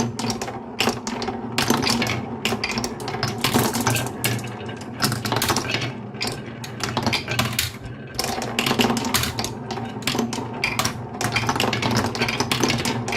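Marbles rolling down a marble run: a steady rolling rumble under dense, irregular clicking and clacking as they strike the track and one another.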